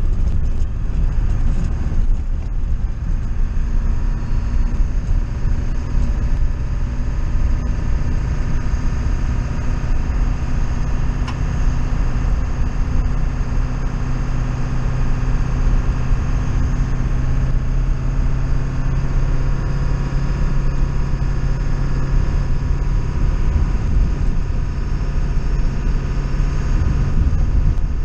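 A vehicle running steadily: a low rumble with a steady hum that does not change.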